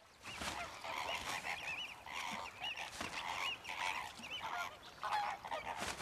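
A flamingo flock calling: a chorus of many short, overlapping honking calls.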